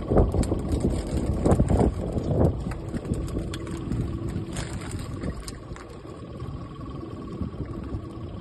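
Wind buffeting the microphone on an open fishing boat, with gusts in the first few seconds, a faint steady hum underneath and scattered light clicks and knocks.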